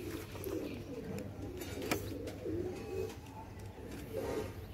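Domestic pigeons cooing, a low warbling coo repeating again and again, with a single sharp click about two seconds in.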